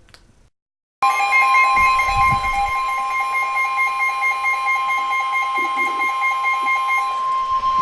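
Emergency Alert System attention tone: after a moment of dead silence, a loud, steady alarm tone starts about a second in and holds, with a lower second tone under it that drops out near the end. The tone heralds a severe thunderstorm warning about to be read. A few low bumps sound under the tone early on.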